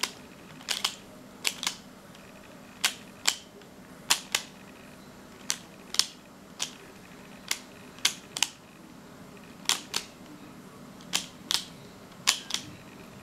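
A plastic Pyraminx puzzle being turned by hand, its layers snapping into place with sharp clicks, often in pairs, about one or two a second.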